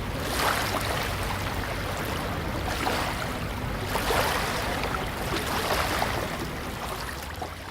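Beach ambience: surf washing in, swelling every second or two, under faint voices of a light crowd, fading out near the end.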